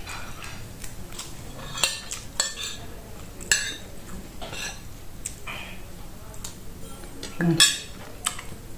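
Metal spoon scraping and clinking against a ceramic plate as rice is scooped up, a few scattered clicks, with a louder clatter near the end as the spoon is laid down on the plate.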